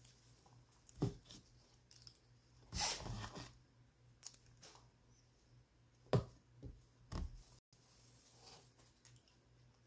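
Metal spoon working in a bowl of ice cream, along with eating sounds. There are sharp clicks about a second in and again around six and seven seconds, and a longer noisy scrape near three seconds.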